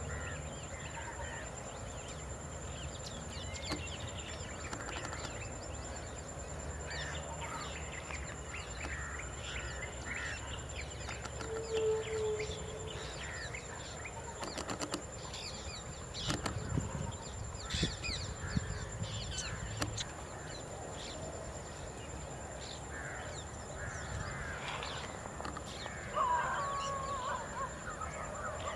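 Birds calling and chirping, with many short scattered calls, over a steady high-pitched hum and a low rumble. A few sharp snaps come a little past halfway, and a louder call comes near the end.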